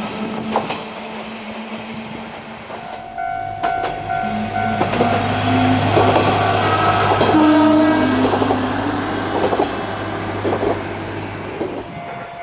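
Shimabara Railway diesel railcar running past, its engine a steady low rumble and its wheels clacking on the rail joints, with the horn sounding in the middle.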